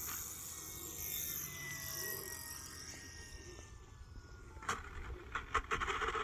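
Electric motor of a radio-controlled model plane whining faintly and slowly dropping in pitch as it throttles down after landing. A run of sharp clicks and knocks follows near the end.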